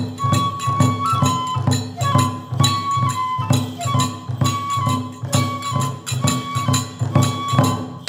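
Kagura accompaniment: a bamboo transverse flute plays a held, stepping melody over steady drum beats and clashing hand cymbals.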